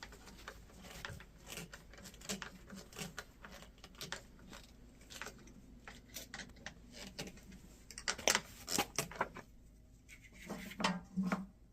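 Irregular clicks, taps and clatter of hard pipe fittings and tools being handled during a sump pump installation, with a few louder knocks about eight seconds in and again near the end.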